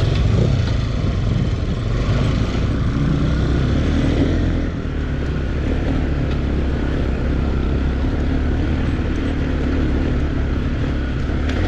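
Dirt-bike engine running steadily at low speed while riding a rough, broken dirt track, with noise from the ride over it.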